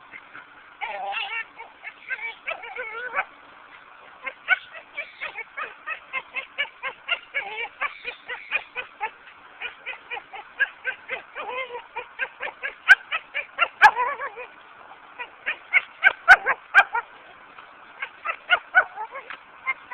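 A dog making strange honking yelps and whines in rapid bursts, about two or three a second, with a few longer wavering whines near the start: a sign of frustration at a brick it can't carry back. Two sharp clicks come partway through.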